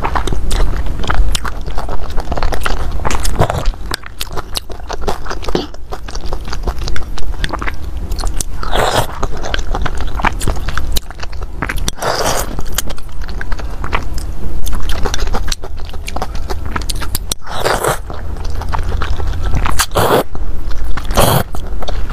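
Close-miked chewing of noodle soup, wet mouth clicks throughout, broken by several short, loud slurps as noodles are sucked in.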